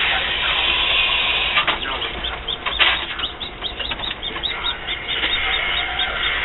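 Newly hatched chicken chick peeping: a rapid run of short high peeps, about five a second, starting about three seconds in after a steady hiss and some brief rustling.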